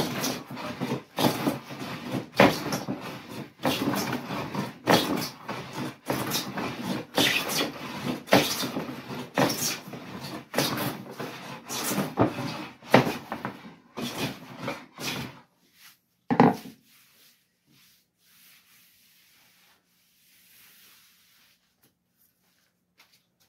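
Wooden-bodied jointer plane taking repeated shavings along a cherry board to smooth flattened stock, a rasping stroke a little more than once a second. The planing stops about 15 seconds in, followed by a single knock.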